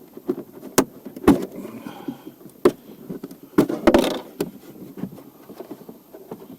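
Sharp clicks and knocks of hard plastic interior parts being handled and pried in a car's dashboard, about six in a few seconds, over a low rustling.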